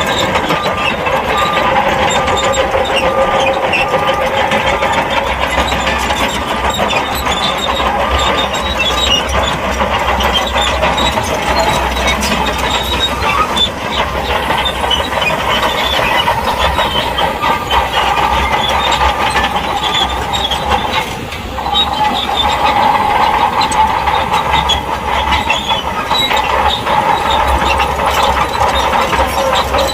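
SHANTUI crawler bulldozer at work pushing sand: the diesel engine runs steadily under load over a continuous clatter and squeak from the steel tracks. The level drops briefly about two-thirds of the way through.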